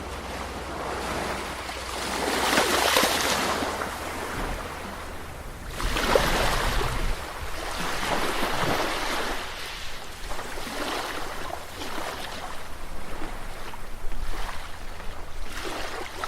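Caribbean sea waves washing ashore, the surf rising and falling in irregular swells, with a steady wind rumble on the microphone underneath.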